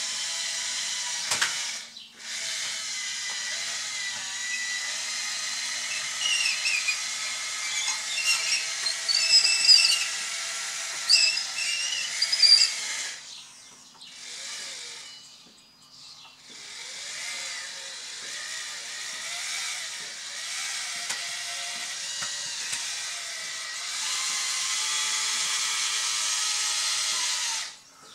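Electric drive motors and gearboxes of an RC-converted Bruder CAT D11 model bulldozer whining as it drives on its tracks. Brief squeaks come between about six and thirteen seconds in. The whine drops away for a moment a few times as the machine stops and sets off again.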